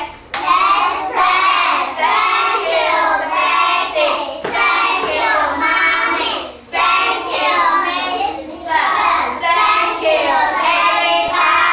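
Young children singing a song in chorus with a woman leading, with a few sharp claps in between.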